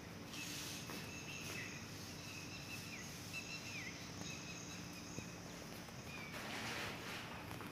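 Faint room ambience with birds chirping outside: a few thin, short whistles that dip in pitch, over a steady high hiss and a low steady hum, with a short rush of noise near the end.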